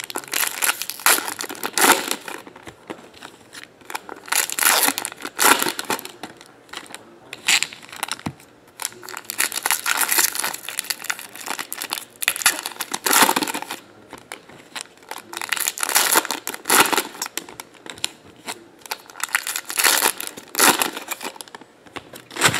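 Foil trading-card pack wrappers being torn open and crinkled by hand, in repeated bursts of crackling rustle.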